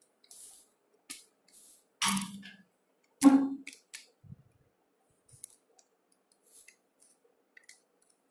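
Scattered clicks and knocks of tripod gear being handled, with two louder knocks about two and three seconds in, followed by fainter ticks.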